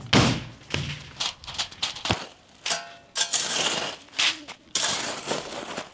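Long-handled metal rake scraping and dragging sand and gravel across the ground in repeated irregular strokes, with a couple of sharp knocks. It is banking earth over the steel lid of a kuzhi mandhi cooking pit to seal the heat in.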